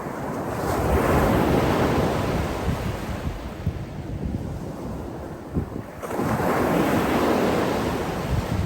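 Sea waves breaking and washing on the shore, two swells of surf about five seconds apart, each rising quickly and fading slowly, with some wind on the microphone.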